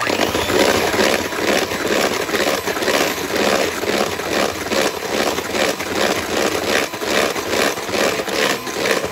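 Electric hand mixer running, its wire beaters whipping a runny pie filling in a plastic bowl. It starts suddenly and stops near the end, with an even pulse about three times a second.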